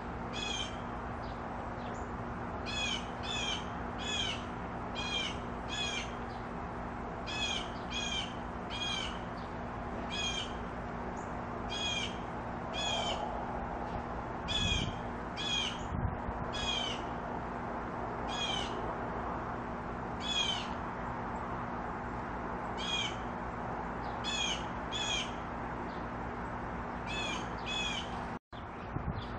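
A bird calling over and over with short, high, bending calls, about one a second and often in pairs, over a steady low hum. The sound cuts out briefly near the end.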